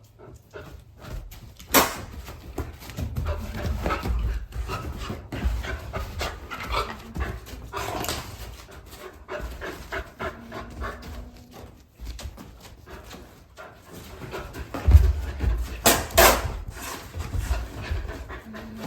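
Golden retriever panting in quick, uneven breaths, with a few sharp clicks or knocks, the loudest about sixteen seconds in.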